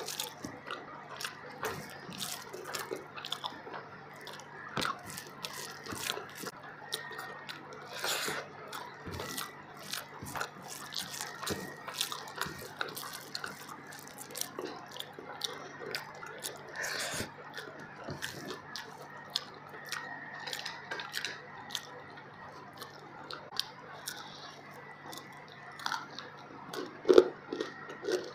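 Close-miked eating: chewing and wet mouth clicks of someone eating biryani by hand, a steady stream of small sharp clicks with a few louder ones near the end.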